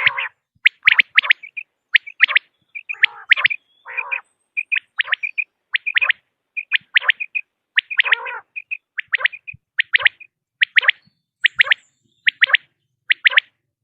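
Common quail calling: short, sharp whistled notes in quick groups of two or three, repeated about once a second, with a few lower, rougher notes mixed in.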